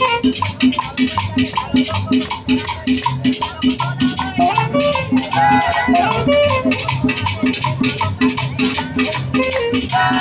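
Live street band with saxophone and drums playing a Latin dance tune, cumbia-style, with a steady beat and a bass line under the saxophone melody.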